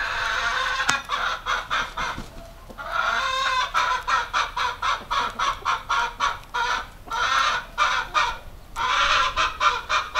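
Domestic hens clucking and cackling: fast runs of short, repeated calls in several bouts with brief breaks between them.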